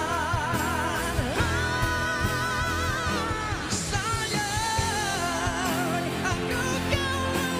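Two male singers in a pop-ballad duet, holding long notes with a wide vibrato over a live band with a steady drum beat.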